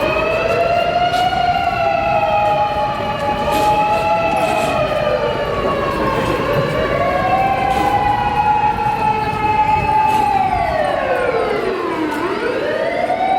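Fire engine sirens sounding together, electronic and mechanical motor siren. A slow wail rises, holds and slides back down, dropping low about halfway and again near the end before winding back up.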